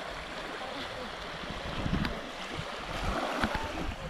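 Small waves washing on a sandbar's shore, with wind gusting unevenly on the microphone.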